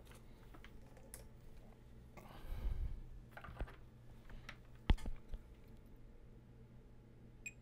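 Light clicks and taps of small tools and test probes being handled on a workbench, with one sharper click about five seconds in and a short rustle a little before the middle, over a low steady hum.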